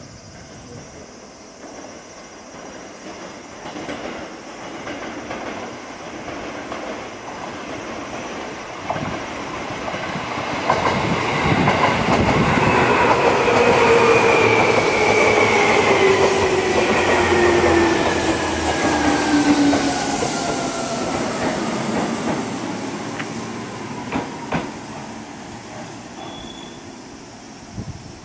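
Seibu 2000 series electric commuter train running in and slowing, its motor whine falling steadily in pitch as it brakes, loudest in the middle as it passes close. Wheels click over rail joints a few times near the end.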